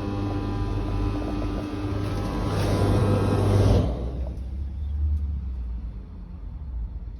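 BEKO tumble dryer running with a motor hum and a rough rumbling noise, the strange noise of the title. The rumbling builds, then cuts off suddenly about four seconds in, leaving a quieter low hum.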